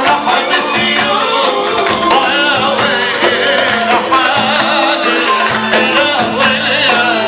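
Loud Arabic wedding dance music, played live: a singer's wavering melody over keyboard and a fast, steady percussion beat.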